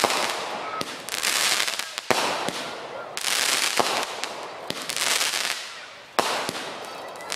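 Aerial fireworks bursting overhead: a string of sharp bangs, each followed by a long hissing, crackling spray, and a single loud bang about six seconds in.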